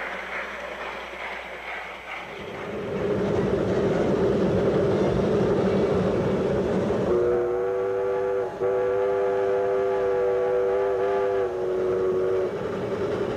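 Shay geared steam locomotive running past, its sound growing louder a couple of seconds in. About halfway through, its steam whistle blows one long blast of about five seconds, with a couple of brief dips, and it stops shortly before the end.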